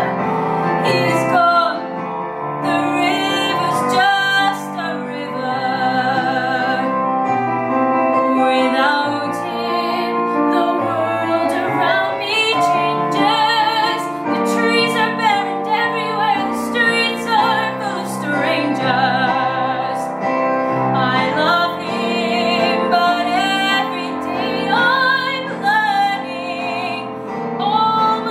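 A solo female voice singing a musical-theatre ballad with vibrato over a piano accompaniment.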